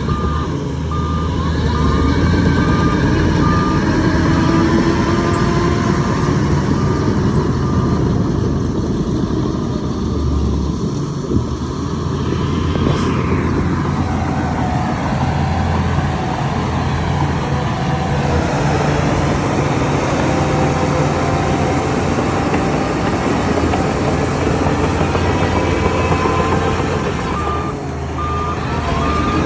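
Heavy diesel machinery running steadily under load, with a reversing alarm beeping about twice a second near the start and again near the end.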